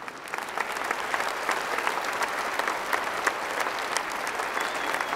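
Large theatre audience breaking into applause, a dense patter of many hands clapping that starts abruptly and keeps going.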